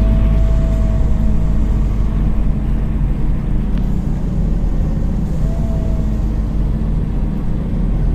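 Scania CN270UB city bus heard from inside the passenger cabin while driving: a steady low drone of engine and drivetrain with road noise. A thin whine fades out about a second and a half in and comes back briefly around five and a half seconds.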